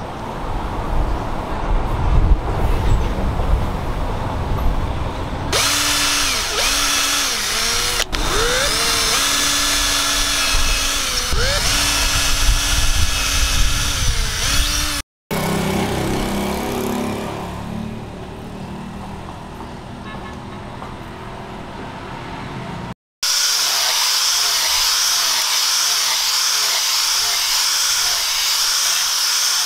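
Cordless drill boring through a knife handle, its motor speeding up and slowing down as the trigger is worked. After a cut, a small rotary pad sander whines steadily as it sands the handle.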